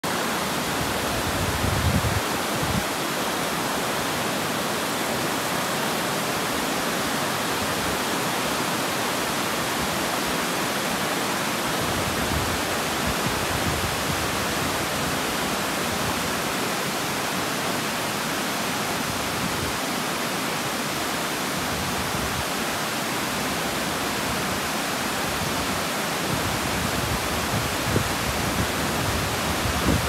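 Water pouring over a low stone weir into a river: a steady, even rushing, with brief low rumbles about two seconds in and near the end.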